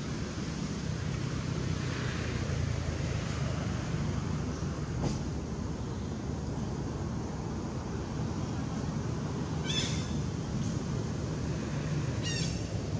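Steady low outdoor background rumble, with two short high-pitched animal calls about two and a half seconds apart near the end.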